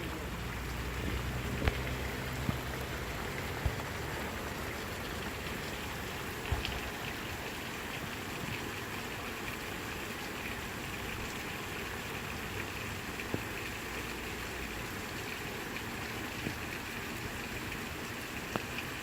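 Steady rain falling, an even hiss, with a few sharp taps here and there.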